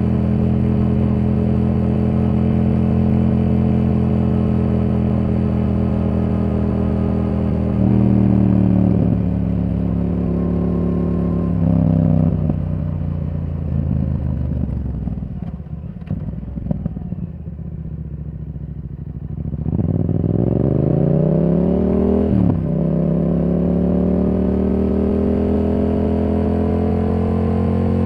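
Yamaha R7's parallel-twin engine through a Yoshimura R77 exhaust, riding under load. It holds steady revs, then rolls off for several seconds with falling revs and scattered crackles from the exhaust. It then accelerates with rising pitch, shifts up once with a sudden drop in pitch, and climbs again.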